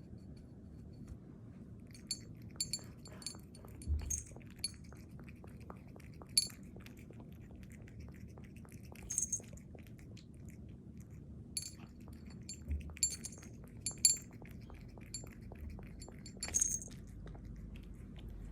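A cat eating venison from a dish: scattered sharp clinks, some in quick clusters, with chewing between them.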